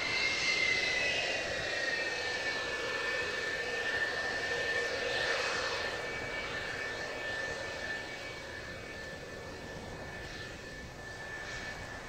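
F-4EJ Kai Phantom II's twin J79 turbojets running at taxi power as the jet rolls past: a steady high whine over a rushing noise. The whine sags slightly in pitch in the first couple of seconds, and the sound fades gradually as the aircraft moves away.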